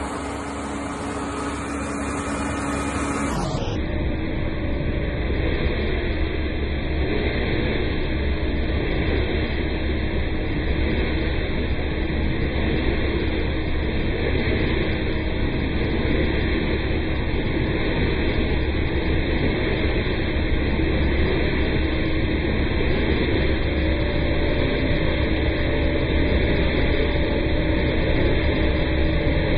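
Suction pipe of a Vac-con vacuum truck pulling standing rainwater off the pavement: a steady rush of air and water into the pipe, with the truck's engine and vacuum blower running underneath. It grows slowly louder.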